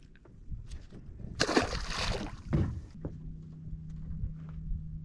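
A small redfish released over the side of a boat, hitting the water with a splash about a second and a half in, then a knock about a second later. A steady low hum sets in about three seconds in.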